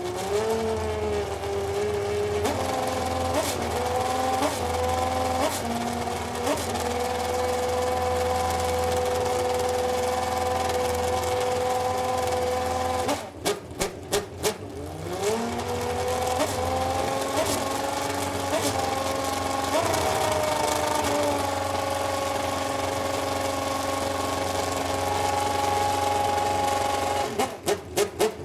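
Superleague Formula Panoz DP09B's 4.2-litre V12 racing engine at high revs. It accelerates through a run of quick upshifts, then holds a steady high-pitched scream for several seconds. About halfway through it downshifts with a string of sharp throttle blips, then pulls up through the gears again, and it blips down once more near the end.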